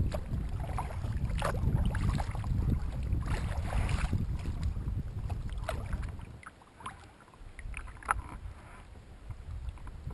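Water splashing and lapping against a kayak's bow as it is paddled along, in small irregular splashes. Wind rumbles on the microphone for about the first six seconds, then dies down.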